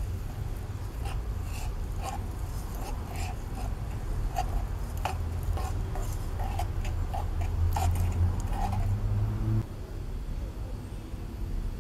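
Sugar melting into caramel in a saucepan, with small irregular ticks and pops over a steady low hum that cuts off suddenly near the end.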